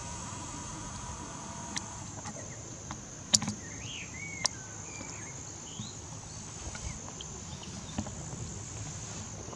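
Steady high-pitched chirring of insects in a grassy meadow. A few short chirps come about four seconds in, and several sharp clicks fall through it, the loudest about three seconds in.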